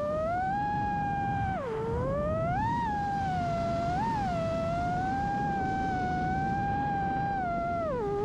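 FPV freestyle quad's Hypetrain 2306 1750KV brushless motors whining in flight, over a rush of wind and prop wash. The pitch rises and falls with the throttle and drops sharply about two seconds in and again at the end as the throttle is chopped.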